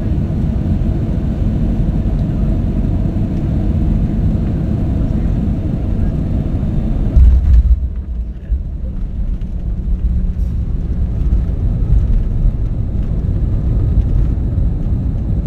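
Jet airliner cabin noise on final approach, a steady rumble, then the touchdown about seven seconds in as a short, heavy low rumble, the loudest moment, followed by the lower rumble of the landing roll on the runway.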